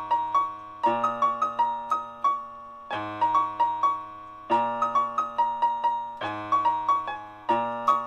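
Home electronic keyboard (synthesizer) played with a piano voice: a low note or chord struck anew every second and a half to two seconds, with a quick figure of a few higher notes over each.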